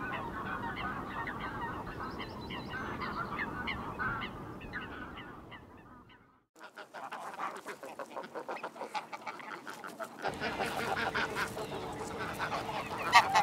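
A flock of greylag geese and other waterfowl calling, with many short overlapping honks, fading out about six seconds in. After a short silence, fainter clicking and calls come back and build again toward the end.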